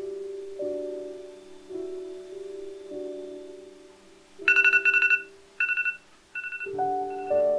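Soft background music of mallet-instrument notes, like vibraphone or marimba. From about halfway through, a rapidly trilling high two-tone electronic ring, like a phone ringtone, comes in a few short bursts.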